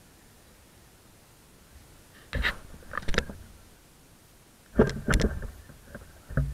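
Several short, sharp knocks and thumps in clusters: a pair about two and a half and three seconds in, a louder run about five seconds in, and one more near the end, over a quiet background.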